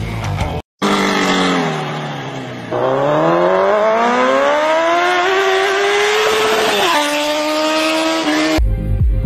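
Car engine revving. Its pitch sinks, then climbs steadily for about four seconds as it accelerates, drops sharply with a gear change about seven seconds in, and cuts off suddenly near the end.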